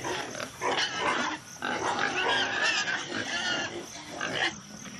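Pigs squealing in several separate bursts.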